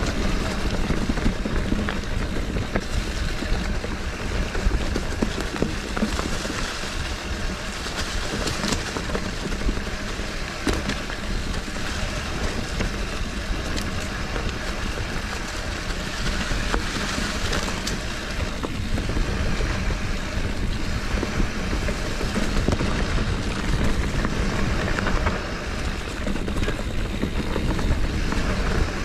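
Mountain bike riding fast over a dry dirt trail: constant tyre noise and crunching with scattered knocks and rattles from the bike, under a heavy rumble of wind on the microphone.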